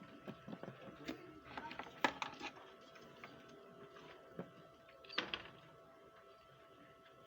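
Irregular small clicks and taps of tools and parts being handled during a soldering repair, over a faint steady tone. The loudest taps come about two seconds and five seconds in.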